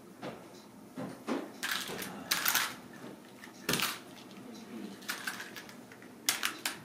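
Kittens batting at a pink plastic ball toy dangling from a wand's string, making scattered light clicks and brief rattles, with a cluster about two seconds in and another near the end.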